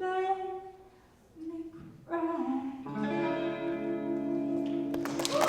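Solo singer with acoustic guitar closing a song. Short sung phrases, then a final held note over a ringing guitar chord. Cheering and clapping break in just before the end.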